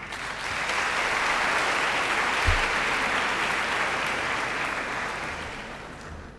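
Audience applauding in a large hall, rising quickly at the start, holding steady, then fading away near the end.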